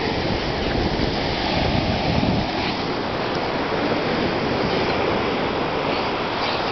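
Steady rushing of ocean surf on a beach, mixed with wind buffeting the microphone.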